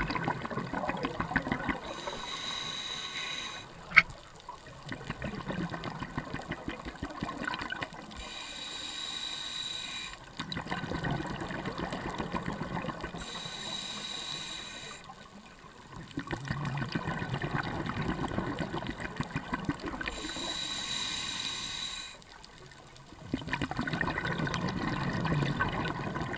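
Scuba diver breathing through a regulator underwater: four hissing inhales with a high whistle, each followed by a longer crackling burble of exhaled bubbles. There is a single sharp click about four seconds in.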